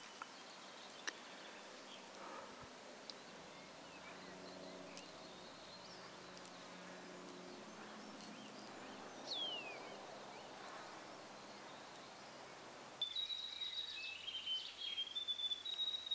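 Faint native forest ambience with scattered bird calls: a quick falling whistle near the middle, then near the end a louder run of clear, high whistled notes stepping up and down.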